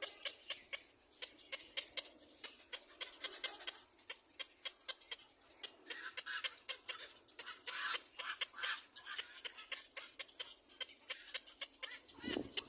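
Baby bird's begging calls: a rapid, continuous run of short, high-pitched chirps, with a louder cluster about halfway through and a lower call near the end.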